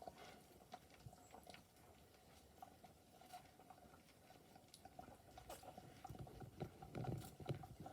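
Newborn wire-haired dachshund puppies making faint squeaks, snuffles and small wet clicking sounds, scattered and irregular, a little busier near the end.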